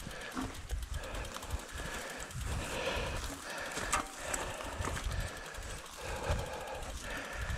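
Votec 29er mountain bike riding over a rough trail: tyres crunching and the bike rattling and knocking, with a sharp knock about four seconds in, and wind buffeting the microphone in low gusts.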